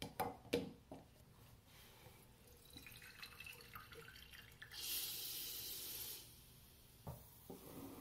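AeroPress coffee maker pressed down onto a glass: coffee trickles through the paper filter with a faint hiss, then a louder steady hiss for about a second and a half as the plunger bottoms out and pushes air through the coffee grounds. Two sharp clicks at the start and a couple of light knocks near the end from handling the press and glass.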